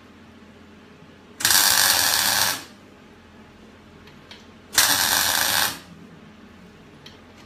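Wire-feed welder laying two short welds on steel, each about a second of steady crackling that starts and stops abruptly, a few seconds apart.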